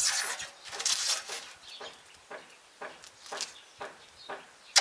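Protective plastic film being peeled off a metal door-reveal strip: two tearing rips in the first second or so, then a run of short soft ticks about two a second.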